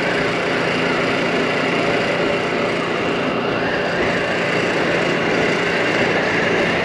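2022 Mondial Turismo 80cc scooter's engine running at a steady cruise, with steady wind and road noise.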